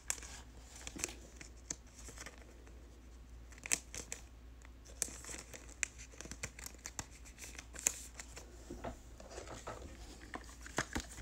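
Faint crinkling and rustling of a thin clear plastic card sleeve as a trading card is handled and slipped out of it, with scattered small clicks and ticks, the sharpest about four, five and eight seconds in.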